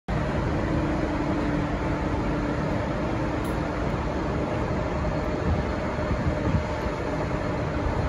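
Diesel trains idling in a railway station: a steady low engine rumble with a faint hum.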